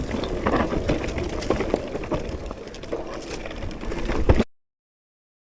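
Mountain bike ridden over rough trail: rattling knocks and clicks over a low wind and tyre rumble. It cuts off suddenly to silence about four and a half seconds in.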